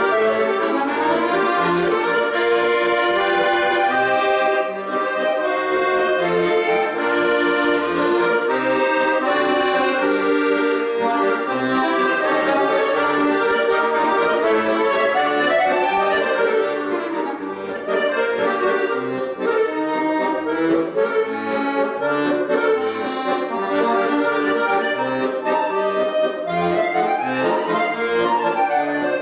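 Accordion playing, with fast runs of notes sweeping up and down the scale.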